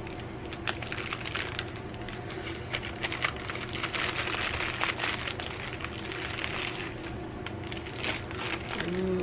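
Packaging rustling and crackling as it is opened by hand: a dense, uneven run of small crinkles and snaps.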